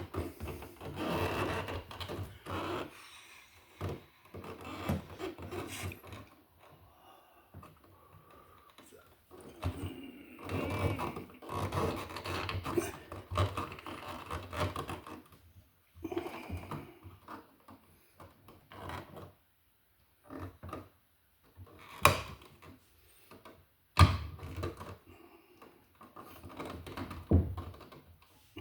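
Wires being pushed and folded back into an electrical wall box: irregular rubbing, scraping and light knocks, with two sharp clicks about three-quarters of the way through.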